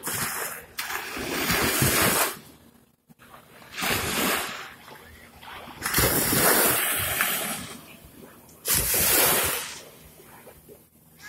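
Small sea waves breaking and washing up a sandy shore, the surf rising and falling in about five surges a couple of seconds apart.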